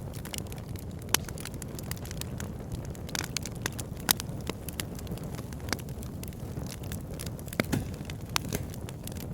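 Wood fire crackling in a fireplace: a steady low rumble of burning with frequent sharp pops and snaps, a few louder pops standing out.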